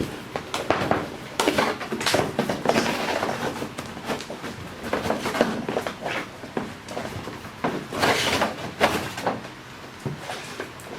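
Irregular handling noises: a run of knocks, clicks and rustling from objects being moved about, busiest near the end.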